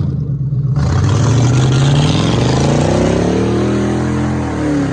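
Car engine running loud, revved up and back down once: the pitch climbs from about two seconds in and falls back near the end.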